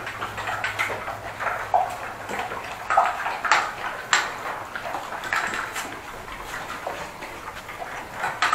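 Dogs eating from stainless steel bowls: irregular wet slurping and crunching, with sharp clinks of the bowls, two of the loudest about three and a half and four seconds in.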